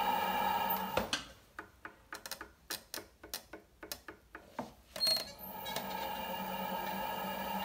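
Electric pottery wheel running with a steady motor hum, stopping about a second in. Then a run of light, irregular taps and clicks as the leather-hard clay pot is handled and re-set on the wheel head. A sharp click comes about five seconds in, and the wheel's hum starts again.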